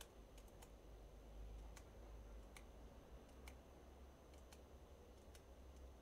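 Faint computer mouse clicks, about ten of them at irregular spacing, as sketch lines are trimmed away one click at a time, over a low steady hum.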